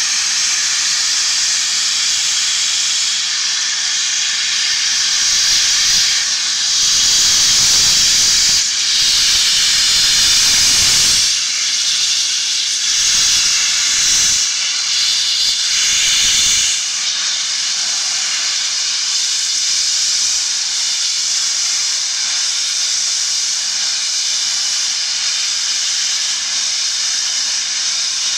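Loud, continuous hiss of steam from the three-cylinder Peppercorn A1 Pacific steam locomotive 60163 Tornado, vented from the front of the engine at the cylinders. It grows louder and fuller from about 6 to 17 seconds in, then settles back to a steady hiss.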